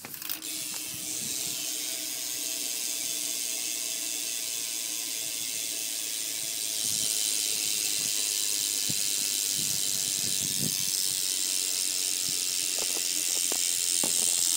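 G-Sport Ratchet rear hub on a BMX bike freewheeling as the back wheel spins, its pawls making a fast, continuous clicking buzz. It gets louder about halfway through and cuts off suddenly at the end.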